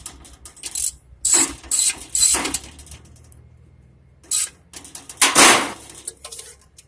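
Metal parts of a welded jerk pan being handled: a series of short, irregular scraping and rattling knocks, the loudest about five seconds in.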